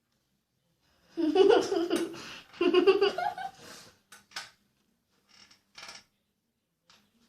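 A girl's voice laughing in two loud bursts, starting about a second in, followed by a few short breathy sounds.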